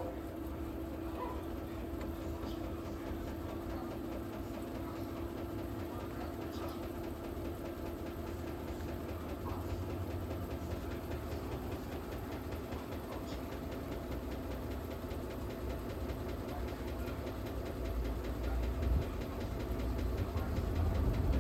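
Electrolux Ecologic LEC12 12 kg washing machine running with a steady mechanical hum. Its low rumble builds in the last few seconds. Its knocking is put down by the owner to a loose wire beside the pressure switch hitting the machine.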